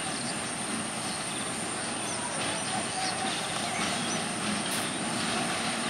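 Diesel locomotive of an express train running slowly as it comes into the station, a steady engine and running sound with faint bird chirps over it.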